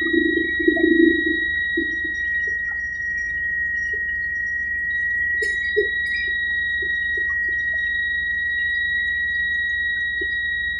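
Helicopter running, heard as one steady high-pitched whine over a low drone, with a few short low blips.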